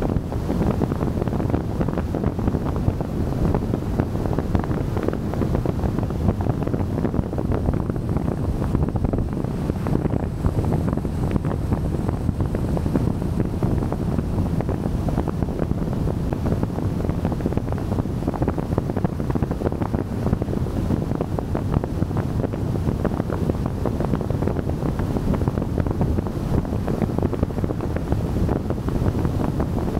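Steady wind and tyre-on-road noise of a car driving at speed on a highway, an even low noise with no engine note standing out.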